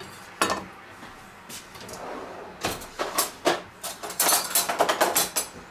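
A kitchen knife set down on a wooden cutting board with one knock, then a kitchen drawer opened and metal cutlery clattering and clinking in a quick run of sharp knocks as someone rummages through it.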